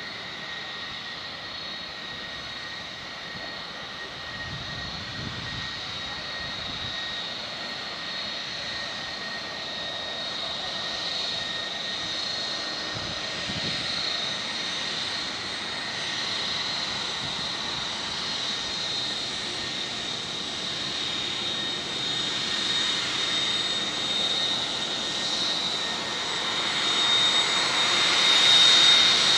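Boeing 757-300 airliner's jet engines running at taxi power: a steady high-pitched whine that grows steadily louder as the aircraft taxis closer, loudest near the end.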